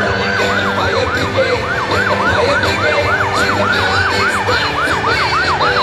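Emergency-vehicle siren in fast yelp mode, its pitch sweeping up and down about four times a second.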